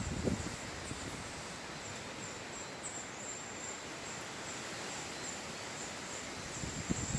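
Steady rush of hurricane wind through trees and vegetation, with faint, high, repeated chirping in the background.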